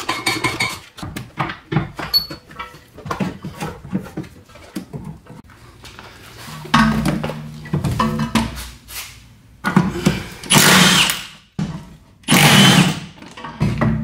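Hand tools clicking and knocking on metal fasteners, then a power tool running in several bursts in the second half, the two loudest about a second each near the end, as the bolts holding the car's strut are undone.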